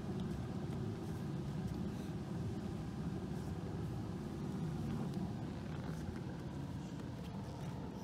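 Steady low drone of the electric blower that keeps an inflatable jumping pillow pumped up, running continuously.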